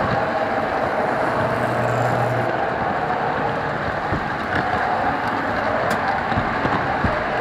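Model train cars rolling along the track right under an onboard camera: a steady rolling noise with a few short clicks, like wheels crossing rail joints.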